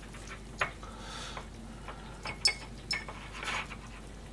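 Kitchen knife cutting through breaded fried food on a stainless-steel counter: short rough cutting strokes with a few sharp taps of the blade against the steel.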